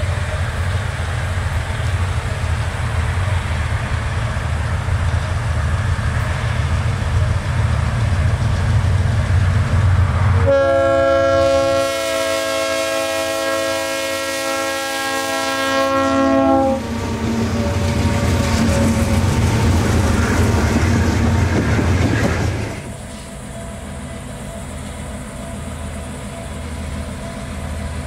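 A train's running rumble, with a horn sounding a steady chord for about six seconds near the middle. The rumble then drops to a quieter low drone.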